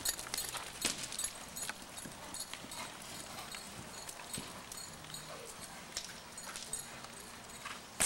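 Hoofbeats of a ridden horse loping on the dirt footing of an indoor arena: an irregular run of short clicks and thuds, louder in the first second or so, with one sharp click near the end.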